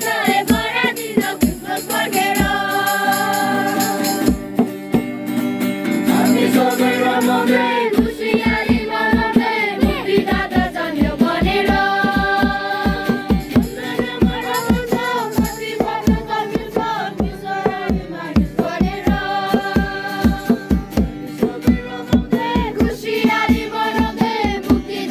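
A group of carolers singing a Christmas carol together, accompanied by an acoustic guitar strummed in a steady rhythm.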